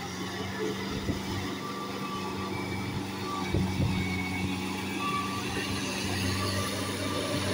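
Kubota L4508 tractor's diesel engine running steadily as it pulls a rotary tiller through flooded paddy mud, growing slightly louder as it comes nearer.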